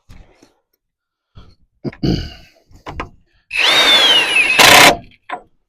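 A few metal clanks, then a handheld power tool runs the axle nut onto the front hub for about a second and a half. Its motor whine rises and then falls, and it ends in a short, louder burst as the nut snugs up.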